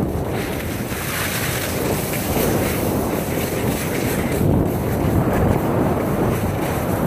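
Wind rushing over a handheld phone's microphone during a downhill ski run, mixed with the skis sliding and hissing over packed snow, swelling and easing as the turns go.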